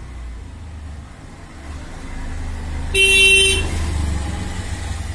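A vehicle horn gives one short toot about three seconds in, over a steady low rumble of road traffic.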